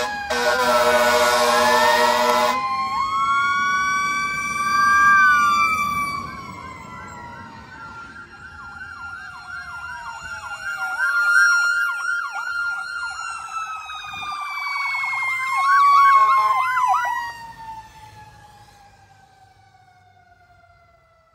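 Fire apparatus sirens as the trucks pull away: a horn blast sounds until about two and a half seconds in, then several sirens wail and yelp over one another. Near the end a long siren tone falls slowly in pitch and fades as the trucks drive off.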